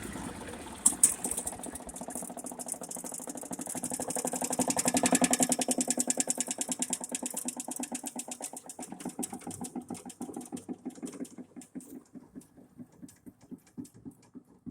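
DR wood chipper's engine running, now that the loose safety switch has been tightened down. It is then shut off, and its firing slows and dies away over the last few seconds.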